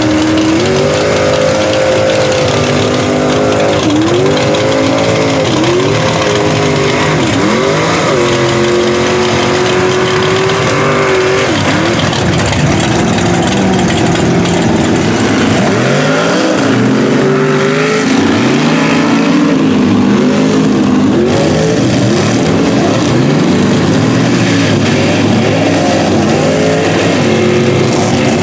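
Mud truck's engine run wide open through a mud pit, its pitch swinging up and down every second or two as it is revved and let off, with one stretch held steady for a few seconds about a third of the way in.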